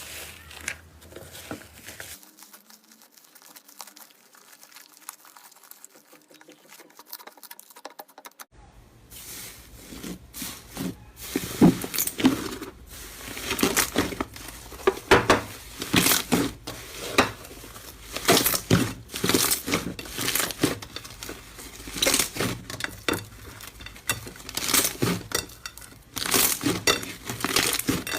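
Slime being squeezed and pressed by hand, making irregular crackling and popping sounds. Soft at first, then from about a third of the way in the pops come louder and more often.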